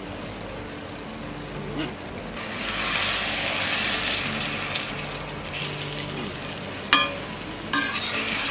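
Thick okra masala gravy sizzling in the pan as it is stirred. The sizzle swells about two and a half seconds in, and the utensil knocks sharply against the pan twice near the end.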